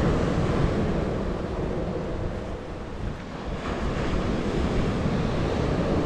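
Wind buffeting the microphone over the steady rush of waves on the shore.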